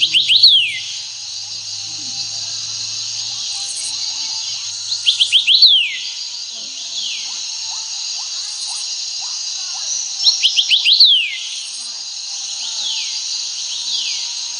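Bird-and-cricket nature ringtone playing from a ZTE Blade A30 phone's speaker. A burst of quick falling bird chirps repeats about every five seconds, with single chirps in between, over a steady cricket-like hiss.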